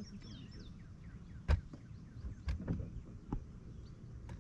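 A few sharp knocks and taps, the loudest about a second and a half in, over a low steady rumble, with faint high chirps early on.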